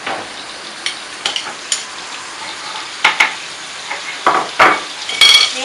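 Diced onion and garlic sizzling in a hot pot on a gas stove, with a utensil knocking and scraping against the pot several times as it is stirred.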